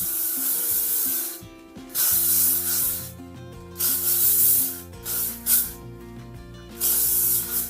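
Aerosol hairspray (L'Oréal Elnett Satin) sprayed onto hair in several hissing bursts of up to about a second each, with short pauses between them.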